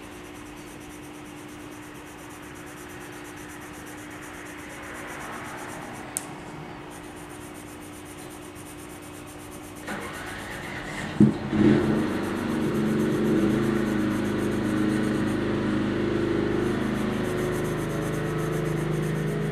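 Colored pencil rubbing lightly on paper over a faint low hum. About ten seconds in a louder mechanical noise sets in, with a sharp knock near eleven seconds, and a steady machine hum carries on from then.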